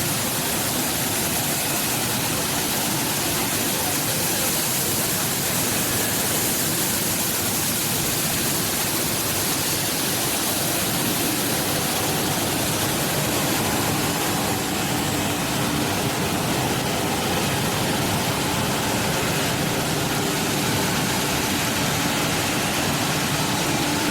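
Tomato bubble washing machine running: water churning with air bubbles over a steady motor hum.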